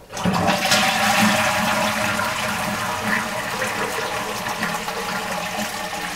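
Toilet flushing: a sudden rush of water that starts abruptly and slowly tapers off.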